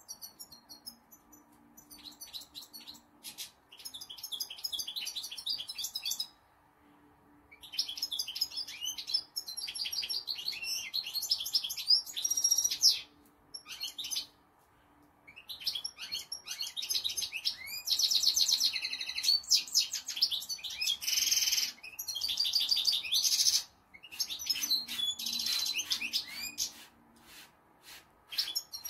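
Caged European goldfinch singing: long bouts of rapid, high, tinkling twitters and trills, broken by a few short pauses.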